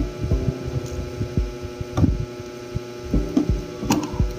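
Steady hum of an electric stand fan with irregular low buffeting thumps, and a couple of sharp clicks of small plastic figures set down inside an acrylic display box, about two seconds in and near the end.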